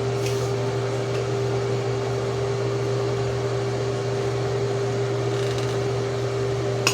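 Electric spin scrubber motor running with a steady hum as it spins its brush head against a bathtub, with a short click near the end.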